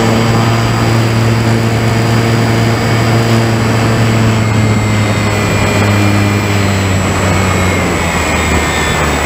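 Electric motor and propeller of an RC model biplane (a Dynam Waco), heard from a camera on board: a loud, steady drone mixed with the rush of air. Its pitch eases down slightly near the end.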